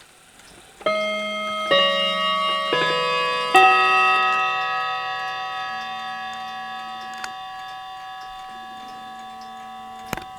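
Clock chime rods struck by hammers: four notes of different pitch, a second or less apart, each ringing on and slowly dying away.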